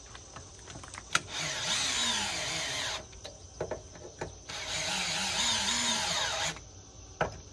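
Cordless drill driving screws into pre-drilled 2x4 lumber in two runs of about two seconds each, the motor's whine wavering in pitch. A sharp knock comes just before the first run and another near the end.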